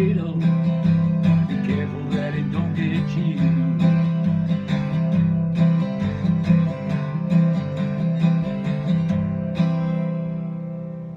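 Acoustic guitar strummed in a steady rhythm, ending the song on a last chord about ten seconds in that rings out and fades away.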